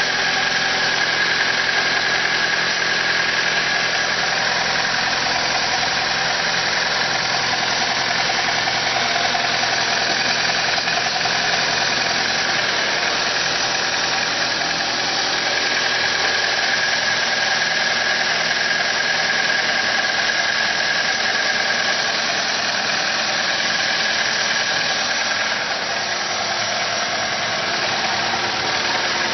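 Car engine idling steadily, with a steady high-pitched whine above the engine note.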